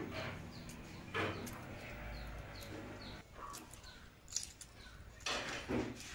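Shell of a hard-boiled egg being cracked and peeled off by hand, with a louder crackle about a second in and a longer one near the end. Birds chirp repeatedly in the background.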